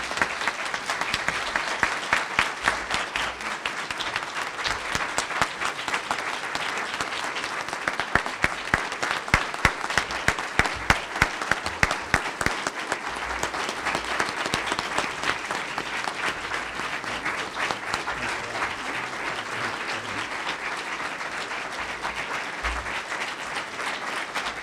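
Audience applauding: a long round of dense clapping that starts suddenly, swells for several seconds and then eases slightly toward the end.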